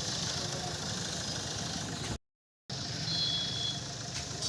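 An engine or motor running steadily, with a hiss over it, cut off completely for about half a second a little over two seconds in.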